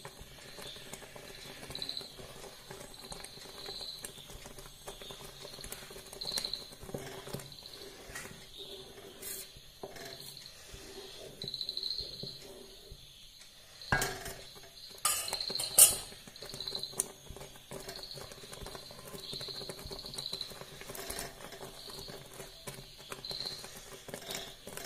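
Thick jackfruit and jaggery mixture bubbling and popping as it simmers in an aluminium pot. A spoon stirs it and knocks against the pot a few times about halfway through. A faint high chirping repeats in the background.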